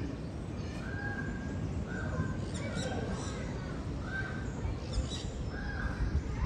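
Northern bald ibises calling: a series of five or six short, level, croaking calls, about one a second, over a steady low background rumble.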